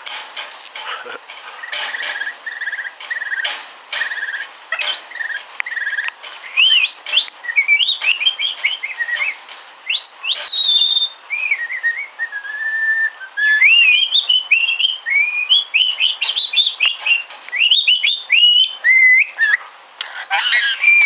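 Rainbow lorikeet whistling and chattering. It starts with a run of short buzzy repeated notes, then gives many quick rising and falling whistles, with sharp clicks in between.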